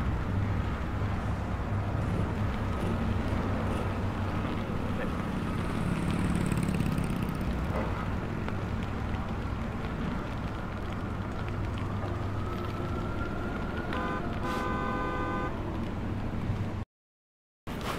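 Steady city street traffic noise with a low rumble. About fourteen seconds in, a short horn-like toot sounds for about a second and a half. Near the end, all sound cuts out abruptly to dead silence for under a second.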